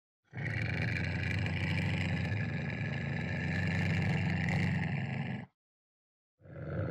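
Ocelot vocalising: a long, low, rumbling call of about five seconds that stops suddenly, and a second one begins near the end.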